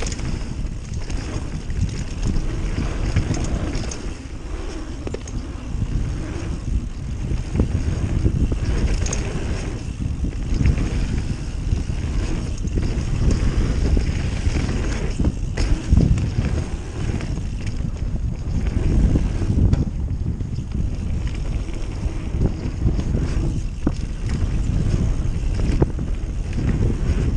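Mountain bike riding fast down a dirt trail: steady wind rush on the microphone and tyre rumble, with frequent knocks and rattles from the bike going over bumps.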